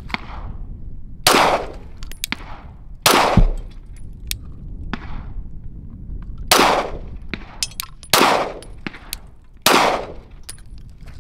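Glock 17 9mm pistol firing five unsuppressed shots of subsonic 147-grain Federal ammunition, spaced one and a half to three and a half seconds apart, each a sharp crack with a ringing tail. A couple of fainter bangs fall in between.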